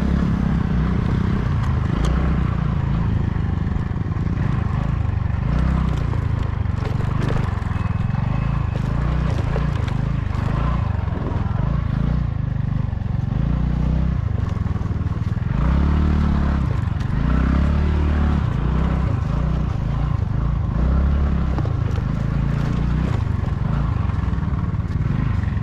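Vehicle engine running while driving over a rough track, the revs rising and falling a few times, with occasional knocks.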